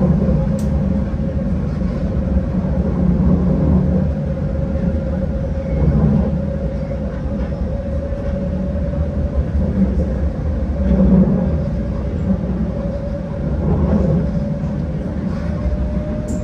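Alstom Citadis tram running between stops, heard from inside the passenger car: a steady low rumble with a thin steady whine that edges slightly up in pitch near the end.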